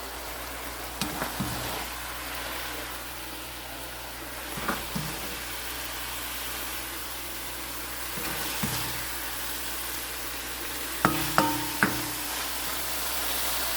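Sautéed ground chicken sizzling in a cooking pot while a spoon stirs and scoops through it, with a few utensil knocks against the pot and a cluster of them about eleven seconds in.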